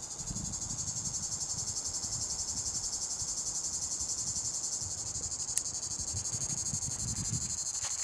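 Male Tibicen plebejus cicada (Lyristes plebejus) singing: a loud, steady high buzz made of fast, even pulses, swelling just at the start and then holding. Its ageing song comes from a worn tymbal membrane, which the recordist takes for the sign of an old male near the end of its season. A single sharp click sounds a little past halfway.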